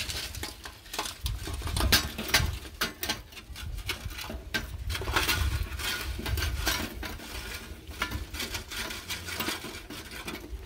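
Hot charcoal briquettes clattering and sliding out of a metal chimney starter into a charcoal holder in a kettle grill: a long run of many small clinks and rattles.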